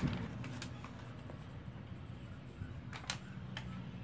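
Pen writing on a notebook page: faint scratching with a few light ticks, the clearest about three seconds in, over a steady low hum.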